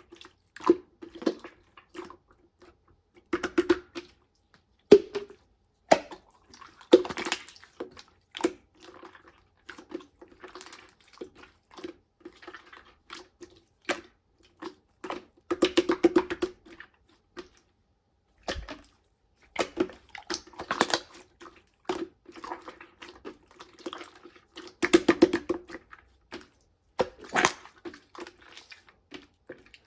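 Yellow marbled slime being squished, stretched and pressed by hand: irregular wet, sticky squelches with sharp little clicks and pops as air pockets in the slime burst, in clusters with short pauses between.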